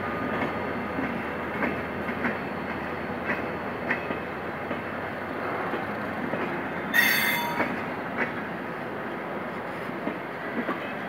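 Passenger coaches rolling slowly past at trackside, a steady rumble with scattered knocks as the wheels cross rail joints. About seven seconds in, a brief high metallic squeal from the wheels is the loudest sound.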